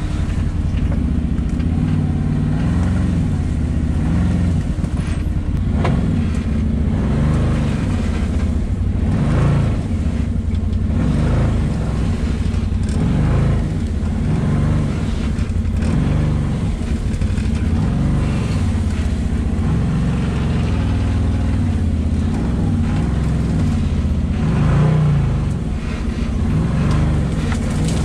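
The 2021 Can-Am Maverick Sport's 100 hp Rotax V-twin engine running under load at low speed. The revs rise and fall again and again as the throttle is worked.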